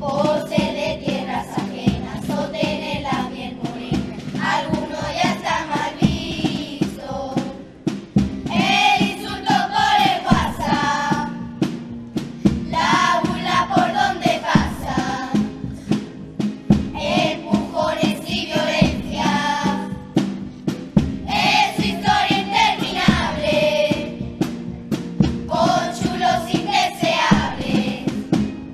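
Children's carnival comparsa choir singing with instrumental accompaniment, in sung phrases of a few seconds separated by brief breaks.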